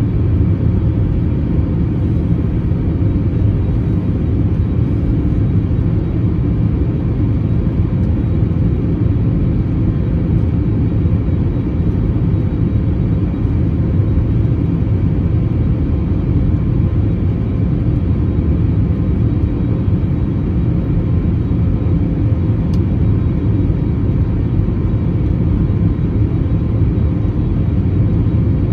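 Steady low rumble of an Airbus A321neo's jet engines and rushing air, heard inside the passenger cabin as the airliner climbs after takeoff.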